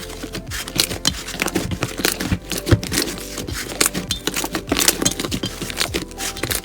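Slime being squished and worked by hand, a dense run of wet crackles and pops, with background music.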